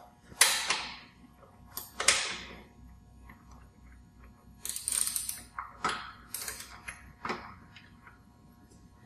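Hand tools working on the metal frame and adjuster of a rubber track unit: two sharp metal knocks in the first two seconds, then a spell of lighter clicking and rattling.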